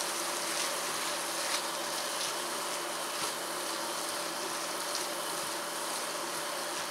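Cauliflower, onion and tomato sizzling steadily in a stainless steel frying pan, with soft taps of a silicone spatula as the vegetables are stirred.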